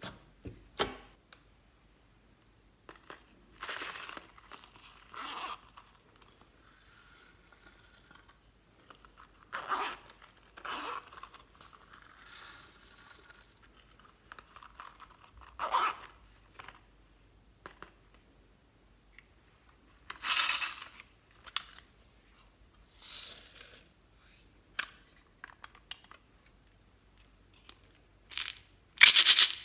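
Small plastic toy cases being handled and opened: separate bursts of clicking and rustling a few seconds apart, with short sharp clicks among them.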